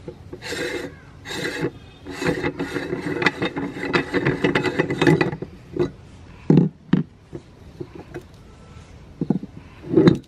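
Metal scraping and rapid clicking as the threaded front ring of a cast-metal hand meat grinder is unscrewed, cookie crumbs grating in the threads. This is followed by a few separate knocks as the cutting plate is worked out.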